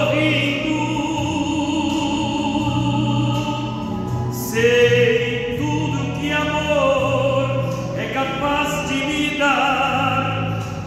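Male operatic tenor singing into a microphone, holding long notes with vibrato, over a steady instrumental accompaniment.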